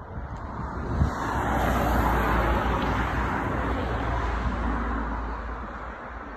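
A car driving past on the road, its noise swelling over about a second, then fading away over the next few seconds.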